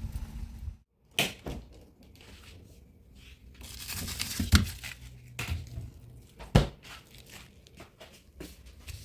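Frozen packs of meat being handled in a freezer: plastic wrapping crinkling and rustling as a frost-covered tray of frozen chicken necks is pulled out, with a few sharp knocks of frozen packages bumping against each other and the shelf.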